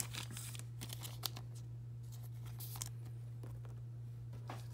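Trading cards and a plastic card sleeve being handled and set down: scattered light rustles and clicks, busiest in the first second, over a steady low hum.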